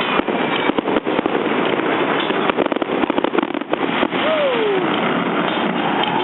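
Fireworks display crackling and popping in dense, rapid volleys of bangs, with a short falling whistle a little past four seconds in.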